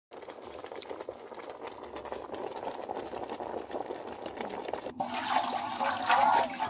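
Pot of peeled sweet potatoes bubbling on the boil: a steady watery bubbling with small crackles. About five seconds in it cuts to a louder wet swishing as a hand works through wet white food in an aluminium bowl.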